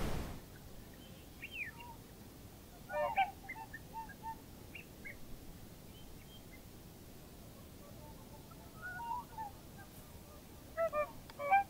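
Whooper swans calling from open water: scattered faint honking calls, a few at a time, then a louder run of calls near the end.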